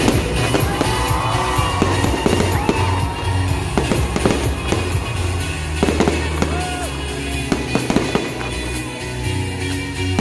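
Aerial fireworks shells bursting in a rapid, irregular string of bangs, over steady background music.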